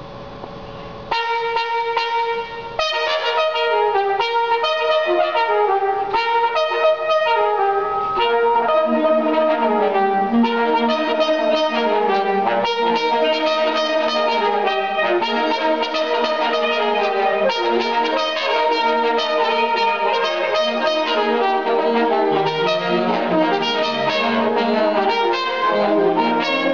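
Jazz orchestra's horn section playing together live: trumpet, trombone, alto saxophone and flute hold and shift overlapping notes. The full ensemble comes in suddenly about a second in after a quieter moment.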